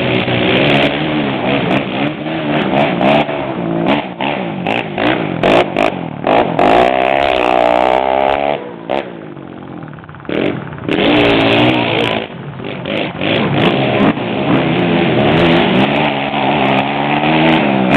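Sport ATV engine revving up and down over and over as it is ridden, its pitch climbing and dropping with each burst of throttle. There are scattered sharp clicks, and the engine drops back briefly about ten seconds in.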